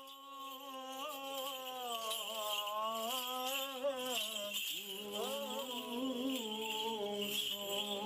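A man's voice chanting a slow liturgical hymn, holding long ornamented notes that waver in pitch, with the small bells of a swung censer jingling behind it.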